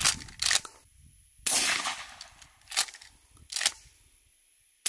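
Suppressed pump-action shotgun fired once with target loads, a muffled blast about a second and a half in. It is set among shorter sharp clacks of the pump action being worked, two near the start and two after the shot.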